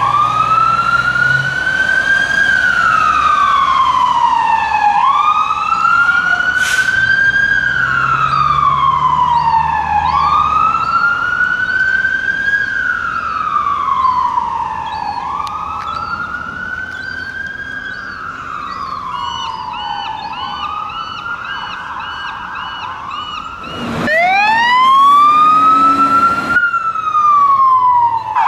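Fire engine siren on a slow wail, rising and falling about every five seconds, with the truck's engine rumbling underneath at times. Near the end a loud blast of noise starts and cuts off after a couple of seconds, while a siren winds up from low to high pitch.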